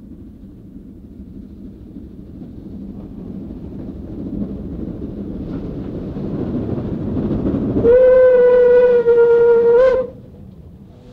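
DB class 065 steam tank locomotive approaching, its running noise growing steadily louder, then about eight seconds in sounding its steam whistle in one long steady blast of about two seconds.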